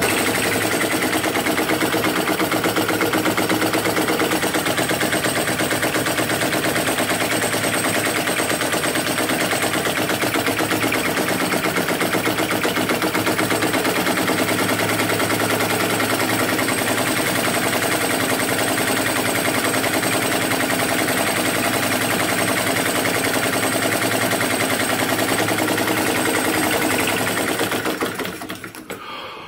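Chinese flame licker (vacuum) engine running fast, giving a rapid, even stream of pops and clatter; it dies away near the end.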